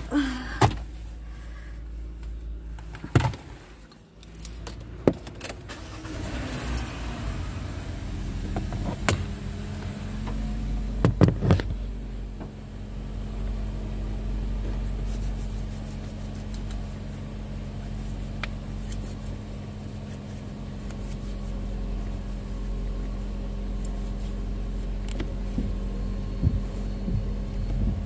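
Clicks and thumps from inside a car as the driver settles into her seat. About six seconds in, the car starts, then idles with a steady low hum heard from inside the cabin, with a few more knocks around eleven seconds in.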